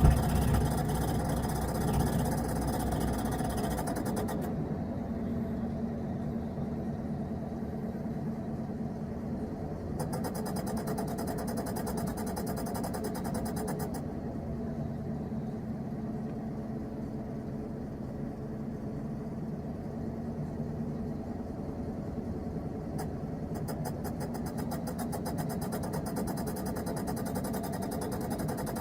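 VW Type 34's air-cooled flat-four engine running steadily, with a fast, even ticking that comes and goes over it: the odd noise the car is making.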